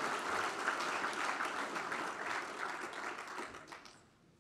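Audience applauding, many hands clapping, dying away near the end.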